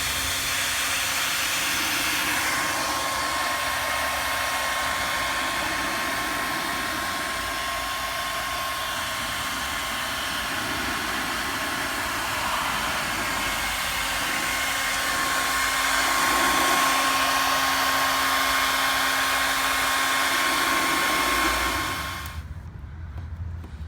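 A handheld hot-air blower runs steadily, an even rushing of air with a faint motor whine, while it heats a car emblem to soften its adhesive for removal. It cuts off suddenly near the end.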